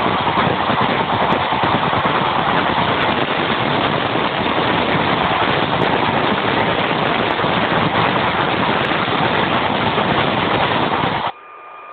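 Recorded train sound effect played as a listening-quiz clip: a loud, dense rumble that cuts off suddenly near the end.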